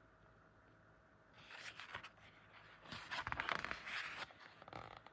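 Hardcover picture-book page being turned by hand: paper rustling and sliding, starting about a second and a half in and loudest from about three to four seconds in.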